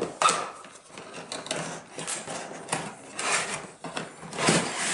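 Cardboard box lid being slid up off its box: a run of rubbing and scraping swells of cardboard on cardboard, with a few sharp taps.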